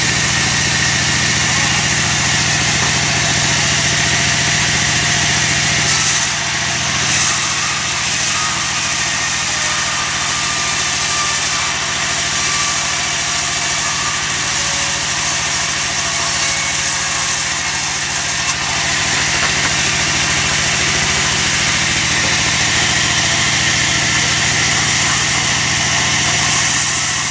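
Engine-driven band sawmill running steadily while a long timber plank is fed through the blade and ripped. The saw's loudness dips briefly about six seconds in.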